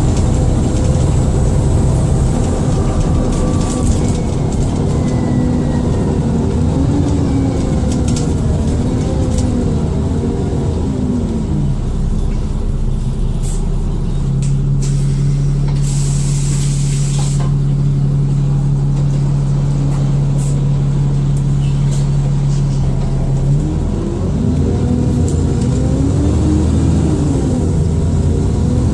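Dennis Trident II double-decker bus heard from on board: the diesel engine rises and falls through the gears, with a faint whine above it. About halfway through, the engine gives way to a steady drone, a short air hiss sounds in the middle of it, and the engine pulls again near the end.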